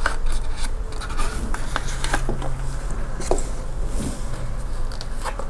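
A clear plastic display case of a diecast model car sliding out of its printed cardboard sleeve, with rubbing and scraping of plastic against card and scattered light clicks.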